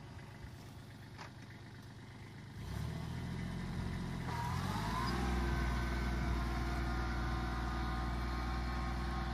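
Kubota GB200 compact tractor's diesel engine running while pulling a reversible plow. It grows louder about a quarter of the way in, revs up around halfway, then runs steadily under load.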